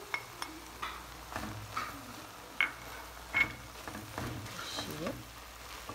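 Browned ground beef and minced garlic sizzling in a nonstick pot while a wooden spoon stirs through them, with scattered ticks and two sharper clicks a little after the middle.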